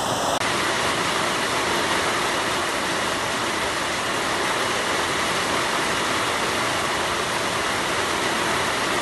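Heavy rain pouring down steadily, an even hiss that doesn't let up.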